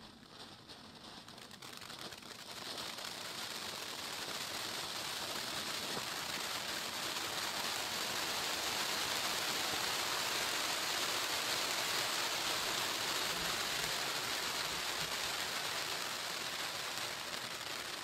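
Ground firework fountain burning, a steady hiss of sparks. The spray swells over the first few seconds, holds, and eases slightly near the end.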